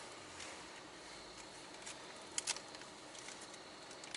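Faint steady hiss of a car's interior, with a couple of short sharp clicks about two and a half seconds in and a few lighter ticks.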